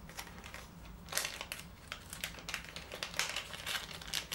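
Small clear plastic bag crinkling and crackling as fingers work it open, the crackles irregular and louder after about a second.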